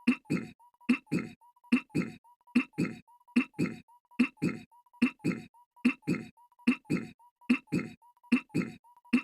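Goofy's cartoon voice clearing his throat, a short two-part 'ahem', looped over and over, about eleven times at an even pace of a little more than one a second.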